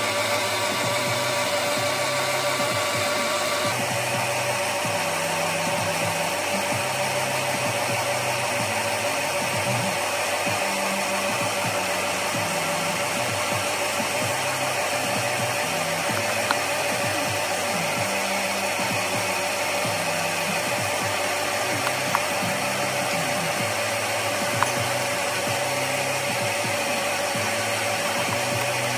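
Steady whirring machine noise, with a bass line of music under it and a few light clicks.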